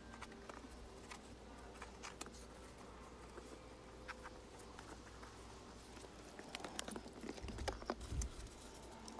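Faint scattered ticks and light scraping of rubber-granule roof leveling compound being pressed and smoothed by gloved hands. About seven seconds in the clicks grow busier, with a couple of dull thumps, as the mixing bag of compound is handled.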